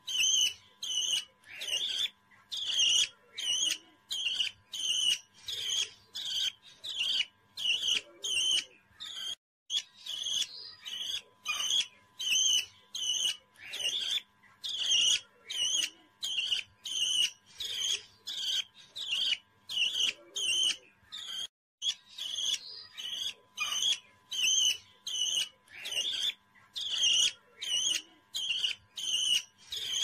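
Baby parrot chirping in short, high calls repeated evenly about twice a second, with two brief pauses.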